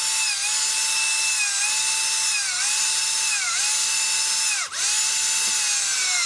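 Turnigy P2627L 4200kv brushless outrunner motor spinning at high speed with a steady high whine. Its pitch dips briefly about five times as the spinning rotor bell is gripped by hand, the deepest dip about three-quarters of the way through.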